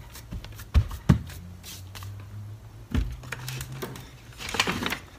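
Hands pressing and patting a dense seed-and-nut-flour mixture flat into a parchment-lined metal baking sheet, with a few dull thumps. Near the end comes a brief rustling clatter as a mini wooden rolling pin is fetched from the counter.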